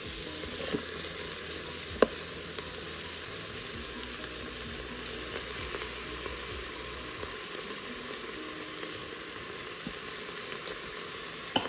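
Diced onions and peppers sizzling steadily in butter and oil in an Instant Pot's stainless steel inner pot on sauté, as the vegetables are sweated soft and stirred with a plastic spoon. A single sharp click about two seconds in.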